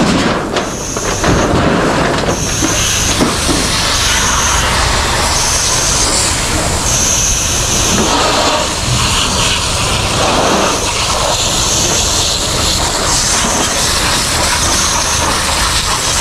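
Fire hose jet spraying water onto burnt debris and metal roofing sheets, a loud steady rushing hiss. A high pulsing tone repeats about every second and a half throughout.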